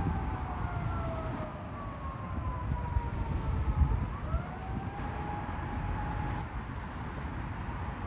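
A siren wailing: its pitch falls slowly for about four seconds, then rises and holds briefly before fading, over a low rumble of wind noise.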